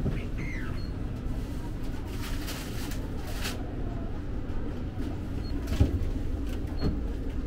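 Steady low machinery rumble inside a ferry. A brief hiss comes about two to three seconds in, and there are a few light knocks, the strongest near six seconds.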